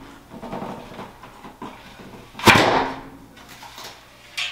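Builder's grade bathroom mirror popping loose from the wall: one loud, sudden crack about two and a half seconds in, with a short fading tail, after faint scraping and handling.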